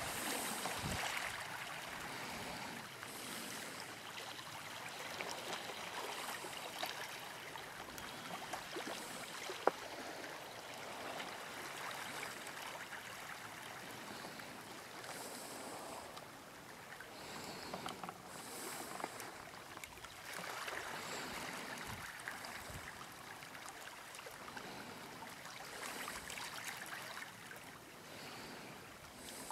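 Small sea waves washing in through slush ice along an icy shoreline: a soft swishing hiss that swells and fades every few seconds, with a sharp tick about ten seconds in.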